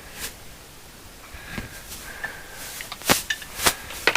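Light clicks, knocks and rustling of interior parts being handled and fitted in a truck cab, with two sharper knocks about three seconds in.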